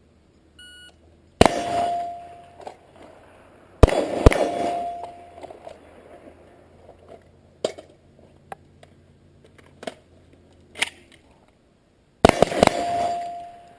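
Shot timer beep, then a PMM SCAR rifle firing the 1-2-3 drill at steel: one shot, a pair about half a second apart a couple of seconds later, and a quick string of three near the end. Each group is followed by the steel plate ringing.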